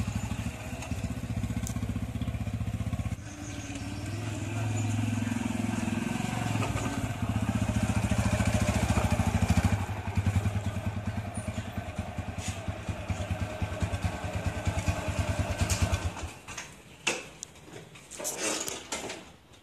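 TVS Apache RTR motorcycle's single-cylinder engine running at low speed while ridden, with a brief rise in revs, then switched off about four seconds before the end. A few clicks and knocks follow.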